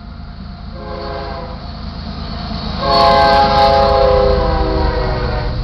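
BNSF ES44AC locomotive's air horn sounding a short blast, then a long, louder blast held for almost three seconds, the closing short-and-long of the grade-crossing signal, over the low rumble of the locomotive drawing near.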